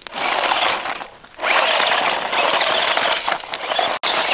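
Battery-powered off-road remote-control truck running over gravel, its electric motor whirring with the tyres, with a short pause about a second in and an abrupt stop near the end.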